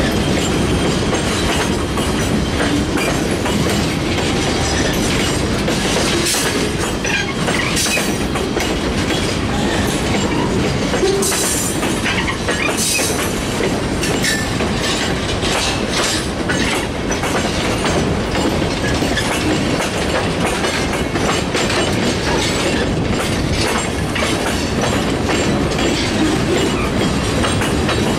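Freight train of boxcars and tank cars rolling past close by: a steady rumble and clatter of steel wheels on the rails, with brief high wheel squeals now and then.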